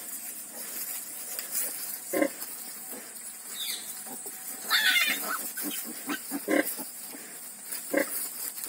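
A sow and her newborn piglets nursing: short pig grunts every second or two, with one louder, higher squeal about five seconds in.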